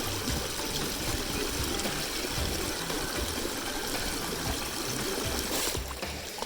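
Mountain stream water running, a steady rush that drops away suddenly near the end.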